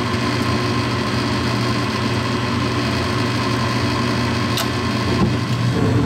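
Gas furnace running at full fire: a steady hum from the draft inducer motor under the even rush of the lit gas burners. One heat exchanger tube is blocked, so the flame from that burner rolls out the front while the pressure switch still lets the unit fire.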